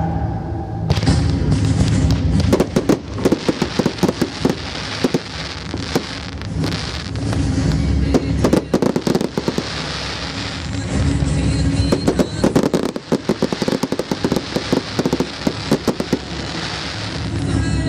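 Aerial fireworks bursting in rapid strings of sharp bangs, with music playing underneath.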